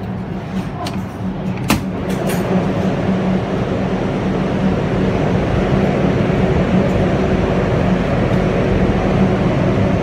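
Steady whir and hum of a morel drying room's circulating fans running, growing louder about two seconds in and then holding steady. A few sharp clicks come in the first couple of seconds.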